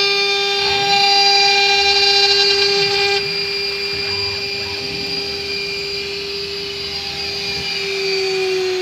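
High-speed spindle of a CNC glass milling machine whining at a steady high pitch while its water-cooled tool mills a glass plate. The pitch sags slightly near the end.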